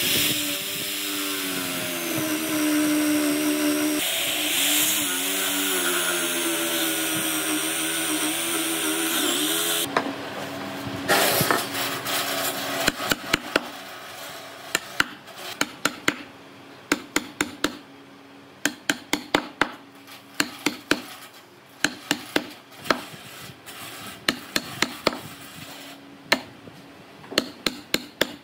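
Cordless drill with a Forstner bit boring into hardwood, the motor's pitch wavering as the load changes, stopping suddenly about ten seconds in. A chisel then cuts out the hole with a series of sharp knocks and clicks in short clusters.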